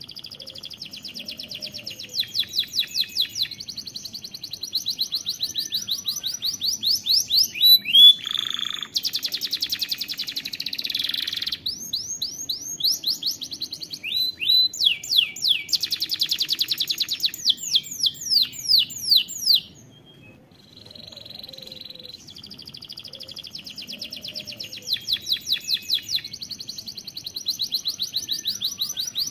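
Domestic canary singing a long song of rapid, repeated trills, with a denser, buzzier run in the middle. The song breaks off briefly about two-thirds through, then starts again with the same quick trills.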